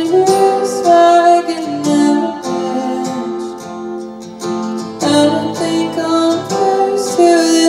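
A woman singing live to a strummed acoustic guitar, holding long notes over the strumming.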